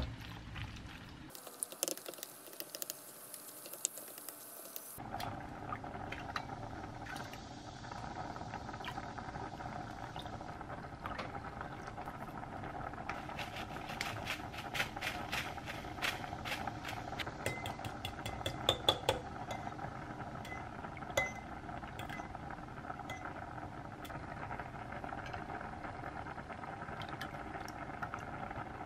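Kitchen utensils clinking and tapping against glass bowls as food is mixed and an egg mixture is beaten, with a quick run of clinks in the middle. A steady hum runs underneath.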